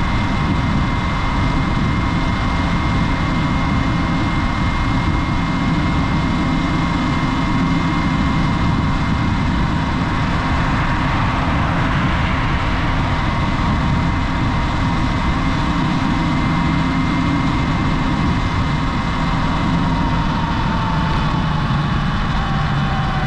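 Sur Ron Light Bee electric dirt bike riding at a steady speed: a constant high electric-drive whine over a loud low rumble. The whine drops in pitch near the end as the bike slows.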